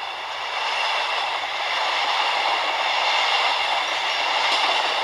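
N-gauge model of a KiHa 183 diesel train running along the layout track, a steady rolling running noise of wheels and motor that grows louder over the first two seconds as the train approaches, then holds steady.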